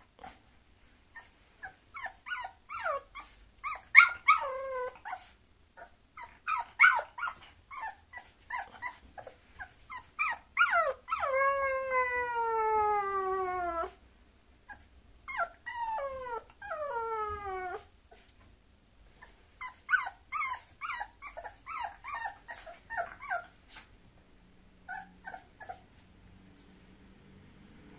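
Bulloxer (bulldog–boxer mix) puppy whining and whimpering again and again, in bouts of short high cries that slide down in pitch. About halfway through comes one long drawn-out falling whine.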